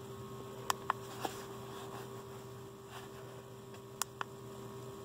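Buttons of a handheld OBD-II code reader clicking under a thumb: three clicks about a second in and two more about four seconds in, over a faint steady hum.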